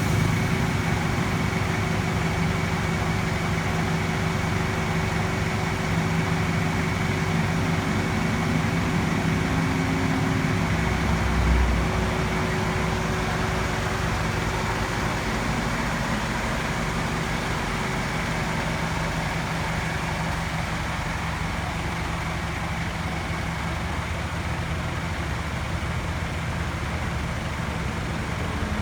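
Motor vehicle engine running steadily, with a brief low swell about eleven seconds in.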